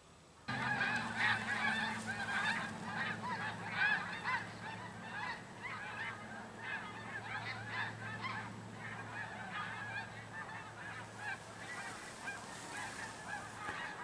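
A flock of geese honking, many overlapping calls at once, starting abruptly about half a second in and going on without a break. A steady low hum runs underneath.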